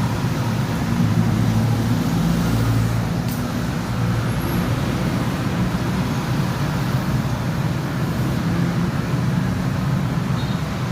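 Road traffic: a steady low rumble of vehicle engines.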